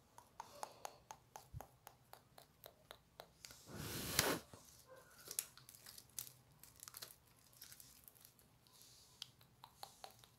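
Yellow slime being stretched, folded and squeezed by hand, giving a string of small sticky clicks and pops as it pulls apart, with one louder, longer squish about four seconds in.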